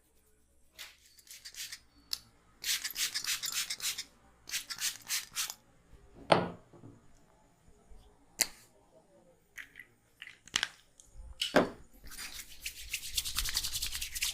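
Hands rubbing and scrubbing vigorously through hair and over the scalp in bursts of rasping noise, with several sharp smacks of a head massage in between.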